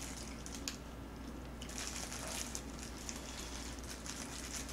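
Faint crinkling of disposable plastic gloves and soft wet handling noises as green onion kimchi is wrapped around boiled pork, with scattered small crackles and one sharper click about a second in.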